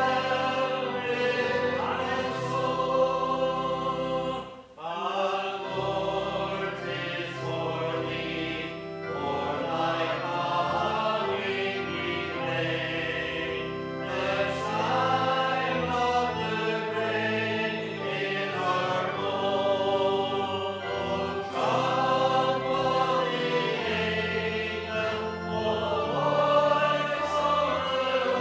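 Church worship song sung by a group of voices with musical accompaniment, held notes moving from line to line, with a brief break about four and a half seconds in.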